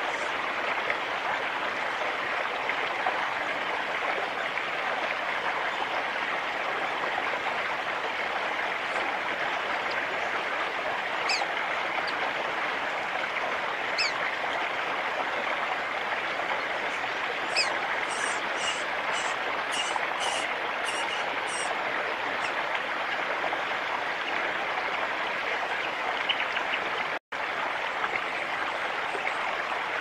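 Steady rush of running water from a nearby stream, with a few thin, high bird chirps over it. About halfway there is a quick run of about eight short, high notes lasting a few seconds.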